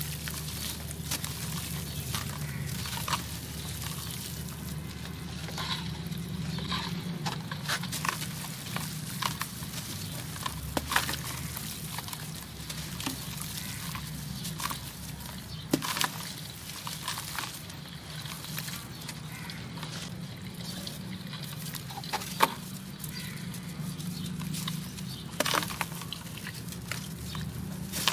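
Dry, extra-crunchy dusty blocks crumbled by hand: a constant crackling crunch, with grains and dust pattering into a steel bowl and a few sharper cracks as larger pieces snap off. A steady low hum runs underneath.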